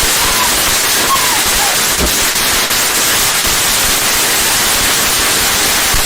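Fountain firework spraying sparks with a loud, steady hiss.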